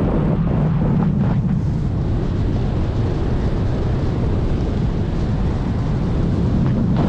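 Airflow rushing over the camera's microphone on a paraglider in flight: a steady, loud wind noise.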